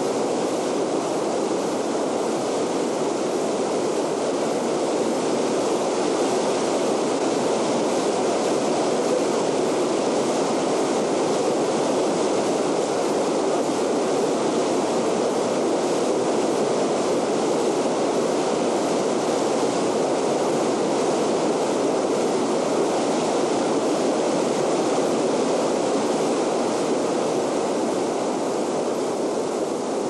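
Whitewater river rapids rushing, a loud steady wash of churning water with no let-up.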